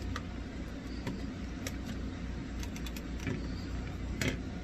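Hands handling and stretching a silicone mask seal: scattered faint clicks and rustles, with one sharper click near the end, over a steady low hum.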